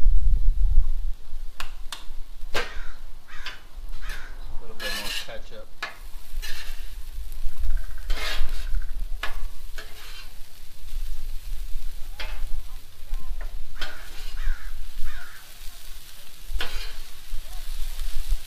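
Metal spatula scraping and clacking on a Blackstone flat-top griddle's steel plate as ground-beef giniling is stirred and piled up, with the food sizzling steadily underneath. The scrapes come irregularly, every second or so, over a low rumble that is strongest at the start.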